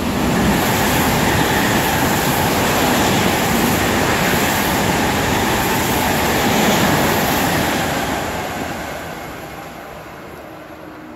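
ICE 3 high-speed electric train passing through at speed: a loud, steady rush of wheels on rail and air that holds for about seven seconds, then fades away as the train recedes.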